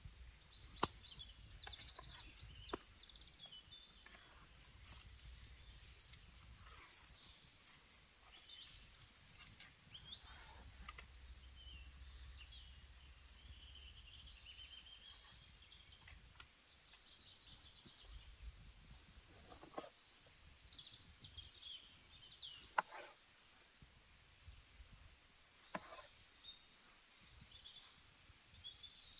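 Faint chirping of small birds, with a few sharp clicks or snaps now and then and a low rumble underneath.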